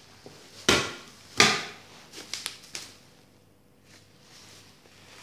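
Bubble-wrapped glass pot lids and cookware being handled: two sharp knocks about a second in, then a few lighter clicks.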